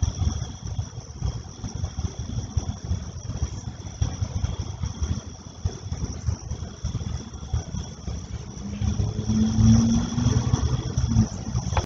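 Gusty low rumble of wind on the microphone, with night insects trilling steadily and high above it. About nine seconds in, a low steady engine hum from a passing vehicle swells for a couple of seconds, the loudest part.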